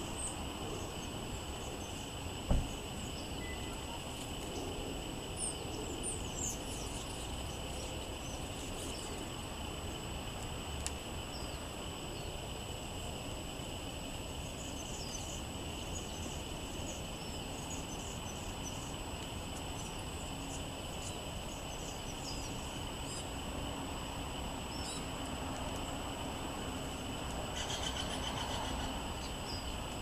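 Outdoor background: a steady high hum under scattered short bird chirps, with a single low thump about two and a half seconds in.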